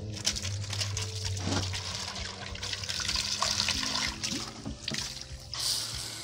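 Water running and splashing onto a tiled floor, a steady hiss full of small crackles that swells louder near the end.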